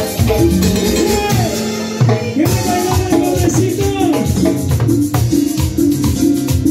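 Live Latin dance band playing loud, amplified: electronic keyboard melody with sliding notes over congas, bongos and timbales with cymbal, keeping a steady dance beat.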